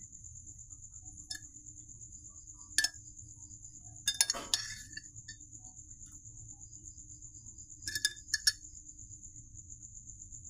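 Kitchenware clinking against cookware in scattered sharp clinks, with a quick cluster about four seconds in and another around eight seconds.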